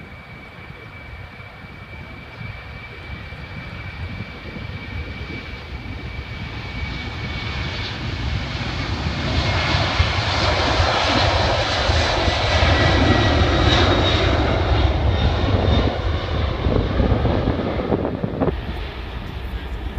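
Boeing 747-400's four jet engines at takeoff power during the takeoff roll: a steady jet noise with a faint high whine that grows louder through the first half, is loudest around the middle, then eases a little as the airliner accelerates away down the runway.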